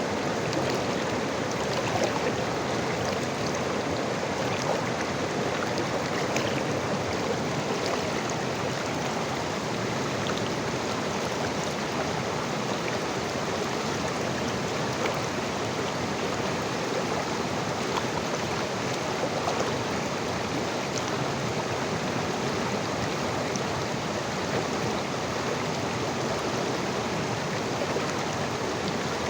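River water flowing: a steady rush of running water with faint, scattered small splashes.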